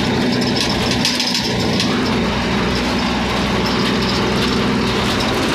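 Engine of the vehicle being ridden in, running steadily as it drives along the road, heard from inside with road and traffic noise.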